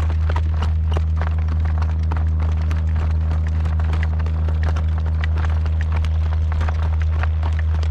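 A horse's hooves clopping steadily as it is ridden, irregular sharp clicks throughout. Underneath runs a steady low rumble.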